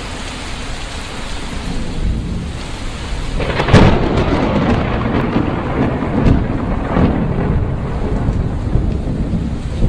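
Thunderstorm: steady rain hiss, with a loud crack of thunder about three and a half seconds in that rumbles on.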